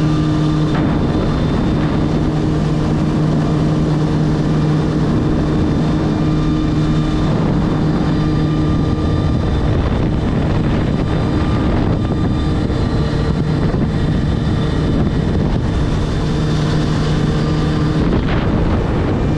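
Jet ski engine running steadily under way: a constant low hum over a broad hiss of wind and water.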